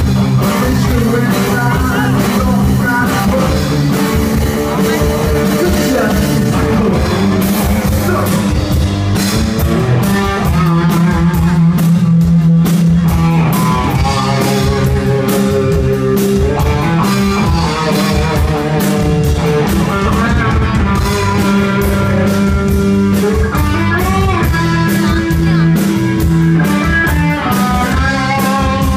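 Live rock band playing: electric guitar over bass guitar and drum kit.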